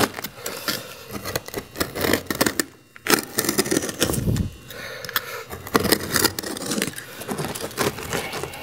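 Utility knife cutting through an asphalt shingle: a gritty scraping and crackling as the blade drags through the granule-coated mat, with a short break about three seconds in.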